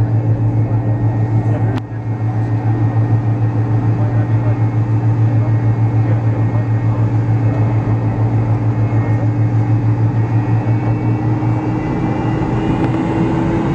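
Cabin noise of a McDonnell Douglas MD-83 airliner taxiing, its rear-mounted Pratt & Whitney JT8D engines giving a steady low hum that pulses several times a second. There is a sharp click about two seconds in, and near the end a higher whine begins to rise in pitch.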